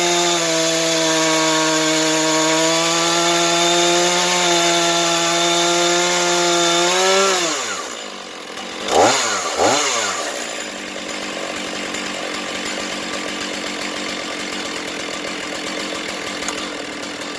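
Two-stroke chainsaw on a chainsaw mill running at a steady high throttle while slabbing a log. About seven seconds in the engine drops off, is revved twice briefly, then settles to a quieter idle.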